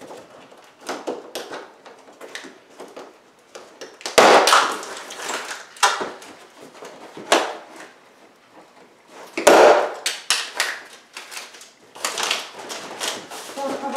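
Large cardboard TV carton being worked apart by hand: irregular scraping and rubbing of cardboard, loudest about four seconds in and again about nine and a half seconds in.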